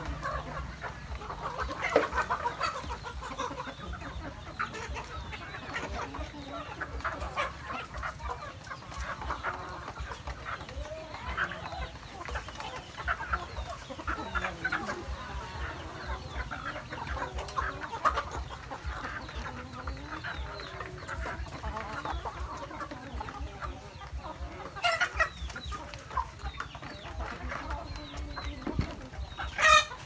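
A flock of chickens clucking continuously as they crowd around a feeder, with two louder calls from a bird near the end.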